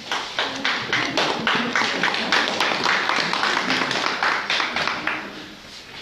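A small audience clapping for about five seconds, dying away near the end.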